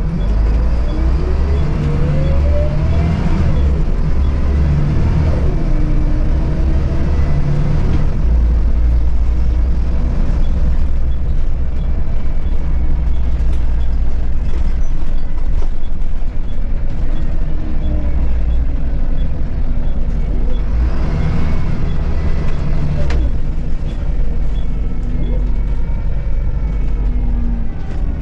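Volvo B7RLE bus's rear-mounted six-cylinder diesel pulling the bus along, heard from inside the cabin: a deep steady drone, with a rising whine as it accelerates near the start and again about twenty seconds in.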